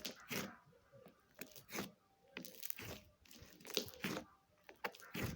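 Slime being squeezed and pressed by hand, giving a string of short, irregular crackles and clicks.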